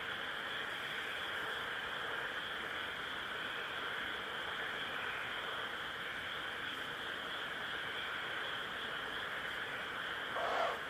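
A steady chorus of insects, with one short 'pishu' call from a Ural owl chick near the end.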